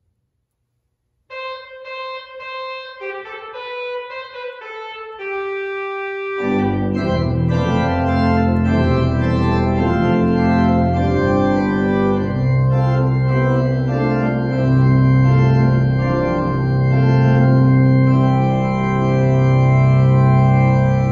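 Organ playing: after about a second of silence it starts with sustained notes in the upper range alone, then about six seconds in full chords with deep bass notes come in and it plays on loudly.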